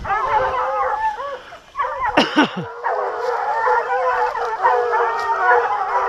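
A pack of hunting hounds baying together in full cry, many voices overlapping without a break, with one louder, closer call about two seconds in. They are giving tongue on a wild boar.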